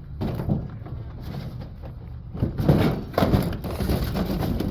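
Metal parts of a central air conditioner being handled and moved while it is stripped for scrap: irregular knocks, clanks and scrapes, thickest a little past the middle, over a steady low rumble.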